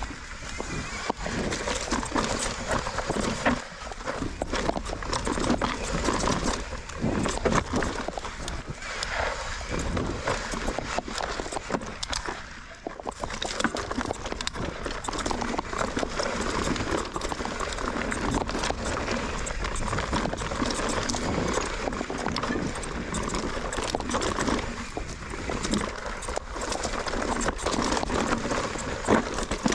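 Mountain bike rattling and clattering over rocky singletrack: a constant run of irregular knocks and clicks from the tyres and frame on stones, over wind noise.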